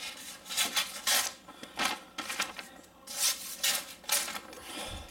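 A sheet of paper rustling and tearing in a quick series of rasping strokes as a convex-ground Condor knife blade is drawn through it. The edge snags and tears the paper rather than slicing it cleanly.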